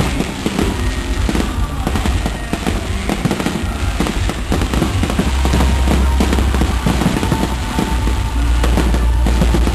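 Fireworks display going off: a dense run of bangs and crackling from shells bursting, with a deep low rumble setting in about halfway.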